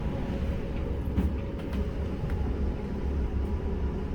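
Gale-force wind buffeting a container crane's operator cab, a low rumble that swells and eases, over a steady hum from the cab's machinery. A couple of faint clicks sound about a second in.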